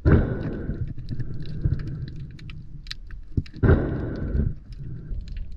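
Muffled underwater sound from a camera in the water: a steady low rumble of water with scattered small clicks, and two louder rushing bursts, one at the start and one about three and a half seconds in.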